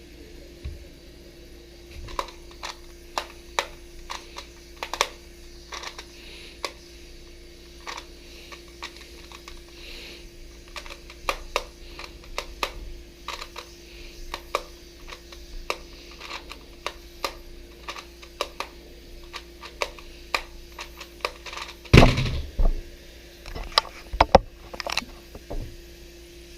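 Rubik's Clock being solved: irregular sharp clicks, two or three a second, as its pins are pushed and its wheels turned. About twenty-two seconds in comes a louder cluster of knocks, then a few last clicks.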